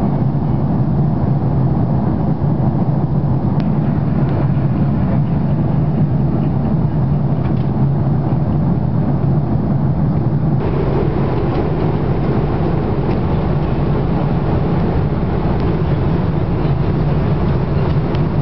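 Steady cabin noise inside an Airbus A340-600 in flight, heard from the rearmost row: the drone of its Rolls-Royce Trent 500 engines and the rush of air past the fuselage. About ten seconds in, the noise changes suddenly to a slightly brighter, fuller hum.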